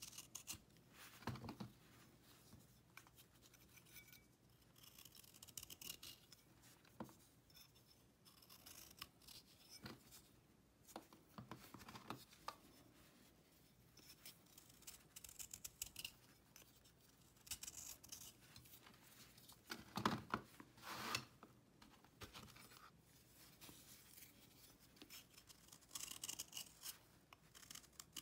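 A kitchen knife blade shaving a dried cake of cleaning paste: short, soft, crumbly scraping strokes at irregular intervals, a few louder ones about two-thirds of the way through and again near the end.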